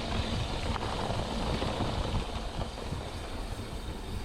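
Mountain bike rolling down a dirt trail: tyre rumble and rattle over the ground, mixed with steady wind rush over the bike-mounted microphone.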